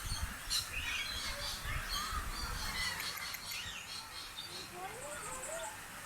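Many aviary birds chirping and calling over one another in short, high, overlapping calls, with a few lower rising whistles about five seconds in.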